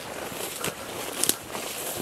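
Footsteps through rough grass and undergrowth, with rustling and a couple of sharp crackles just after a second in.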